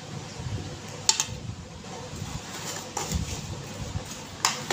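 Steady background hum with three short clicks, about one, three and four and a half seconds in.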